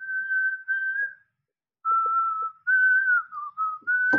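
A person whistling a simple tune: one clear tone in short phrases, the pitch dipping slightly in the middle. A short tap comes at the very end.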